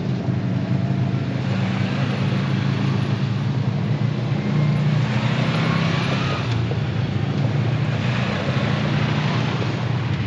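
Side-by-side UTV engines: a steady low engine drone, with other side-by-sides driving past on the dirt track, their engine and tyre noise swelling through the middle and again near the end.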